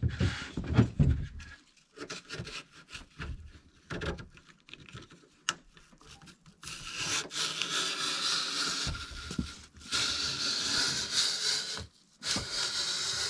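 A few handling knocks, then long stretches of hand scraping and rubbing, broken twice by short pauses.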